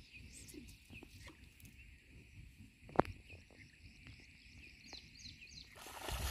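Small birds chirping over and over, with a steady high hum behind them and one sharp click about three seconds in. Rustling noise rises near the end.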